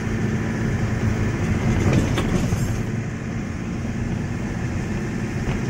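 Steady low rumble of a vehicle driving on a wet road, heard from inside the cabin, with heavy rain on the windows and a light knock about two seconds in.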